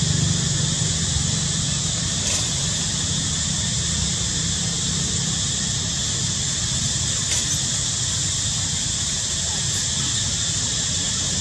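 Steady high-pitched insect chorus of the forest, with a low rumble that fades over the first couple of seconds and a couple of faint clicks.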